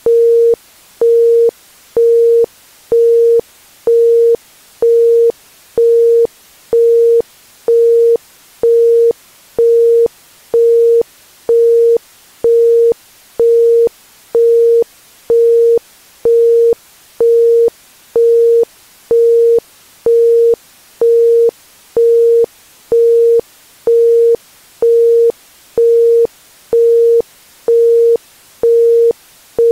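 Isochronic tone: a single 465 Hz pure tone pulsing on and off about once a second (1.05 Hz), over a faint hiss of background noise.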